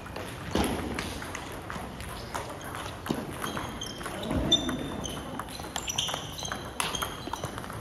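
Table tennis balls being hit and bouncing, a string of sharp irregular clicks, with a few short high squeaks around the middle and near the end.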